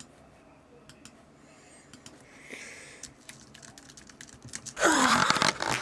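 Quiet typing on a computer keyboard: soft, irregular key clicks. Near the end a much louder sound cuts in over it.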